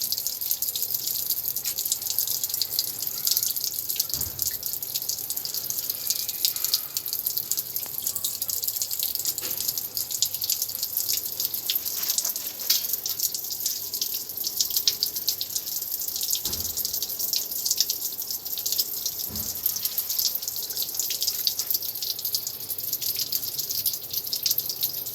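Running water spraying and dripping in a steady spatter, as when a bird is showered under a tap. A few low thumps come through the water noise.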